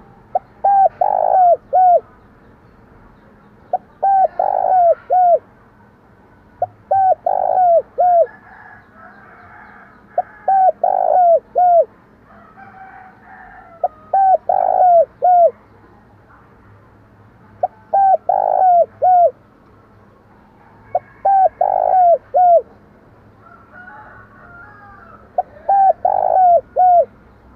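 Spotted dove cooing vigorously: eight phrases of a few short coos each, the middle coo loudest, repeated every three to four seconds. Faint chirps of other birds are heard between the phrases.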